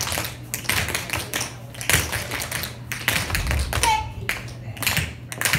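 Several dancers' shoes tapping and stamping on a hard floor in quick, rhythmic Irish jig batter steps, without music.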